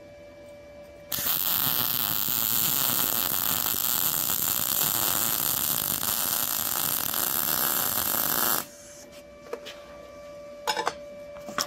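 MIG welding arc on thin-wall 1/16 inch mild steel square tubing, the Arccaptain MIG 200 running a steady crackle for about seven and a half seconds. It starts about a second in and cuts off suddenly as the inside-corner bead is laid with a small looping weave. The machine is dialed in, giving what the welder calls a nice little weld that didn't cook the thin tube.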